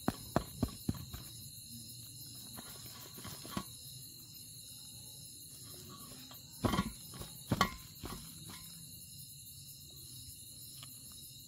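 Crickets chirping steadily, with a quick run of short clicks in the first second and two louder brief noises about seven seconds in.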